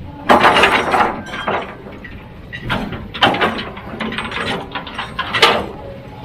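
Heavy machinery at work: an engine running steadily under loud, irregular bursts of clattering and scraping. The biggest bursts come about a third of a second in, around three seconds in, and near the end.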